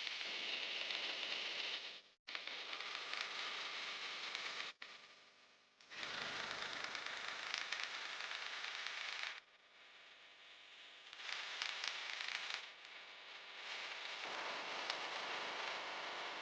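Rustling, crackling noise that stops abruptly about two seconds in and again near five seconds, then comes back.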